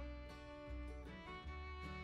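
Background instrumental music, melodic notes over a low bass line, the notes changing about every half second.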